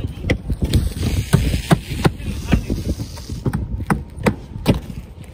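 Hand hammer driving roofing nails into asphalt shingles: a run of sharp, irregular knocks, about two a second.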